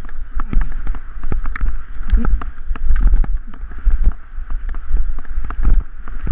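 Scooter rattling and jolting over a rough dirt-and-grass trail: irregular knocks and clatter, several a second, over a steady low rumble of wind buffeting the microphone.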